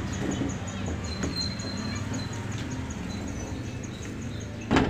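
Outdoor background noise with a faint, fast, high-pitched ticking at about five a second and a brief high chirp about a second in. A sharp knock comes near the end.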